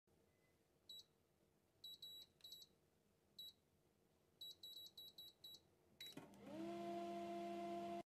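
Microwave-grill oven control panel beeping as keys are pressed and the scroll ring is turned to grill: a dozen or so short high beeps, some single and some in quick runs. About six seconds in, a click and the oven starts running with a steady hum.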